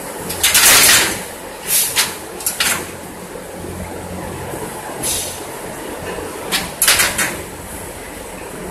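Steady barn ventilation-fan noise with a low hum, broken by several short, harsh, hissing bursts: the loudest about half a second in, others near two seconds and again near seven seconds.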